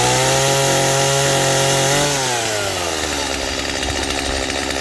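Stihl chainsaw engine held at high revs for about two seconds, then dropping back to a lower, steady idle.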